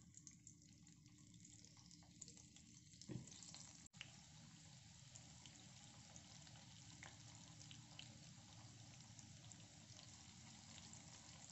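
Maggi noodle and gram-flour balls deep-frying in hot oil in a pan: a faint, steady sizzle with small crackles. A soft thump about three seconds in, and the sound cuts out briefly just before four seconds.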